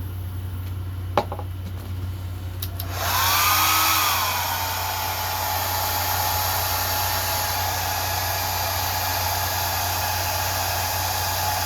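Handheld hair dryer switched on about three seconds in: its motor whine rises, dips and settles to a steady pitch over a rush of air, then blows steadily. A single sharp click about a second in.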